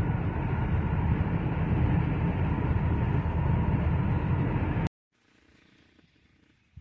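Steady rumble of a vehicle driving, heard from inside the cabin: engine and road noise, strongest in the low end. It cuts off abruptly about five seconds in, leaving near silence.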